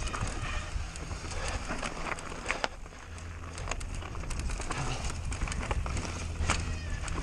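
Mountain bike ridden over rough ground during an enduro descent: irregular knocks and rattles from the tyres, chain and frame over a steady low rumble.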